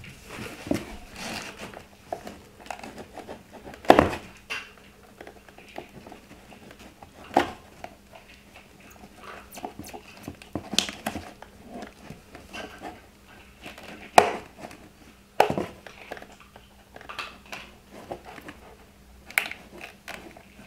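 A pick working around an LED taillight's plastic lens to pry it out of its hardened factory sealant: small scraping and handling noises with several sharp clicks and cracks, the loudest about four seconds in and again about ten seconds later.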